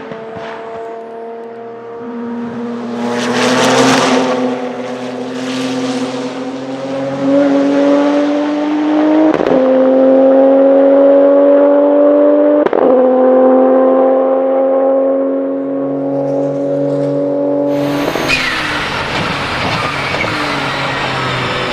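Porsche 997 GT2 RSR's twin-turbo 3.9-litre flat-six running hard with a steady whine, with two sharp shift breaks from the sequential gearbox in the middle. Near the end comes a loud rushing hiss with a falling whistle.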